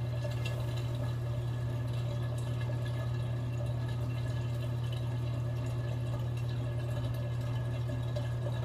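Steady low hum with a faint, even hiss of water running into a bathtub, unchanging throughout.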